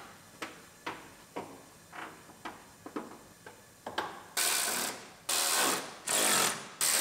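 Plastic wheel-well liner clicking sharply about twice a second as it is pushed into place in the fender. From about four seconds in, a cordless power driver runs in short repeated bursts, fastening the liner's lower edge.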